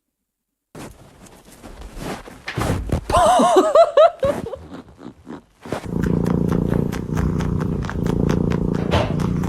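Domestic cat: a short, wavering cry about three seconds in, then loud, steady purring close to the microphone from about halfway on. Scattered small knocks and handling noises come before the cry.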